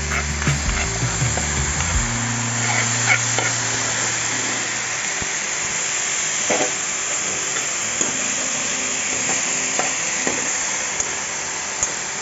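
Pumpkin leaves sizzling as they stir-fry in hot coconut oil in a pan, with occasional brief scrapes and clinks of a metal spoon stirring them. Background music plays underneath.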